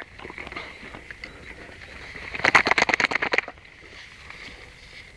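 Tall grass rustling and crackling as Great Danes move and feed in it, with a quick run of crackles lasting about a second midway.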